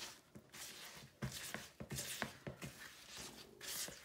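A spatula folding flour into thick, sugary cookie batter, rubbing and scraping against the side of a clear mixing bowl in quick, irregular strokes.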